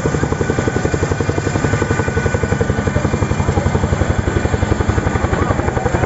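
Boeing CH-47 Chinook tandem-rotor helicopter flying low overhead, its rotor blades beating in a steady rapid pulse of about eleven beats a second.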